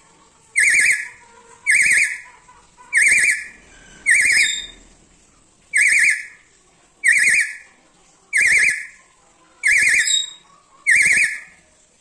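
Black-capped lory giving a series of shrill, warbling squeals, nine in all, about one every second and a bit, each short and much the same.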